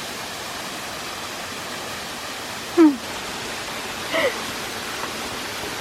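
Small waterfall with a steady rush of falling water. A short falling-pitched voice-like sound cuts in about three seconds in, with a fainter one a second later.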